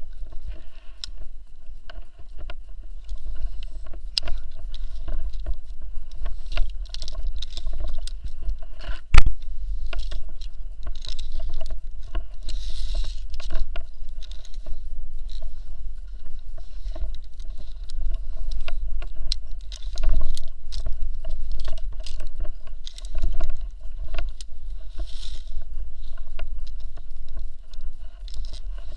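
Tree-climbing gear in use during a rope ascent: scattered clicks and knocks of carabiners, pulley and rope, with one sharp loud knock about nine seconds in, over a heavy steady low rumble on the body-worn microphone.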